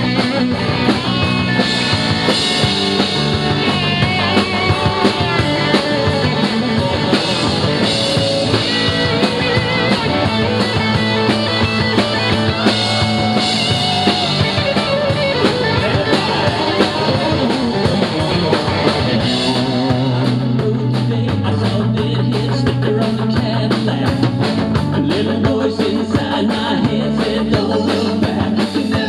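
Live rock band playing a song on electric guitars, bass and drum kit.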